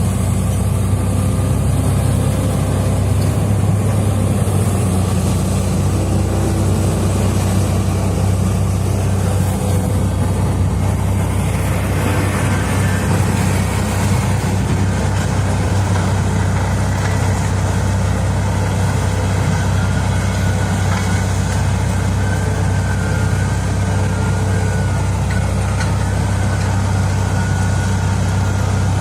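Heavy diesel engine of mining equipment running steadily with a deep, even drone; a higher, rougher note joins about twelve seconds in.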